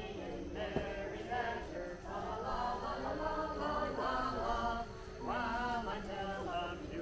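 A group of carolers singing a Christmas carol together, voices held on long notes, with a faint steady low hum underneath.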